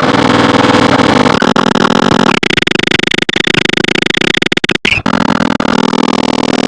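Dense black-MIDI-style synthesized music, so packed with notes that it sounds noisy. A piercing high cluster of notes joins about two and a half seconds in, and the sound drops out for an instant near five seconds.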